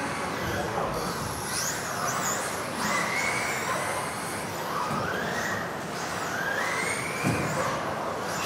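Electric RC off-road buggies racing on a hall floor, their motors whining and rising and falling in pitch as they accelerate and brake, over tyre noise. A single knock about seven seconds in.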